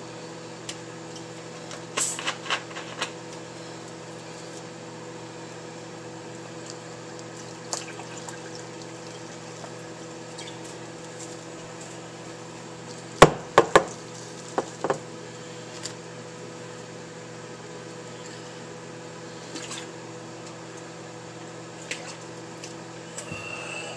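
Microwave oven running with a steady hum while citrus soda is poured over ice in a glass and fizzes. A few sharp clinks come about two seconds in, and a louder cluster of them about thirteen to fifteen seconds in.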